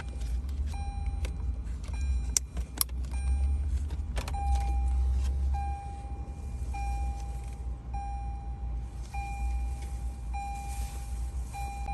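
Lexus RX cabin warning chime beeping at an even pace, about once every 1.2 s. In the first few seconds there are several sharp plastic clicks as the start-stop button panel's connector is unplugged. A low steady hum runs underneath.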